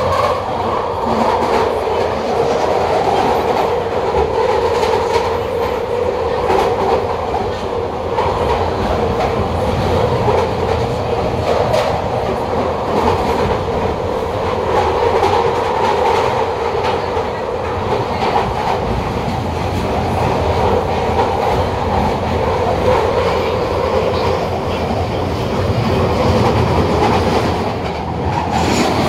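London Underground Victoria line train (2009 Stock) running at speed through a tunnel, heard from inside the carriage: a loud, steady rumble and roar of wheels on rail, with occasional faint clicks.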